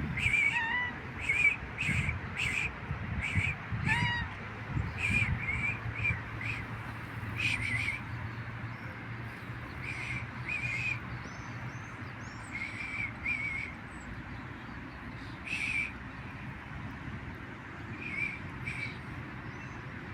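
Birds calling: short chirps repeated throughout, often in quick pairs, more frequent in the first half, over a steady low background rumble.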